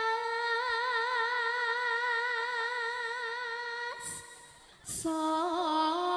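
Javanese sinden (female singer) singing a slow, unaccompanied line, holding a long note with a wide vibrato. Near the end it breaks off for two quick breaths, then she starts a new, lower held note.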